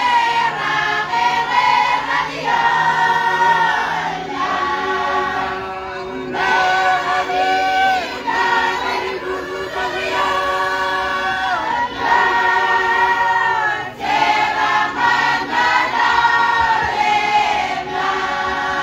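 A choir of men and women singing together in long held phrases, with brief breaks about six and fourteen seconds in.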